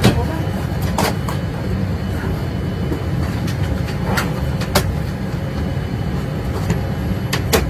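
Steady low rumble of an airliner cabin at the gate, with a few short sharp clicks and knocks scattered through it, including a pair near the end.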